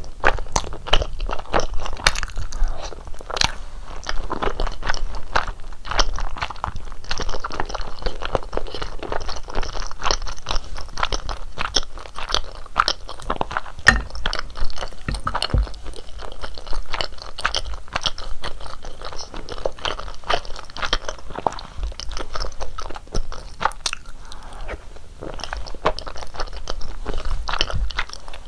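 Close-miked eating sounds: steady chewing and biting, with many quick crunchy, moist clicks.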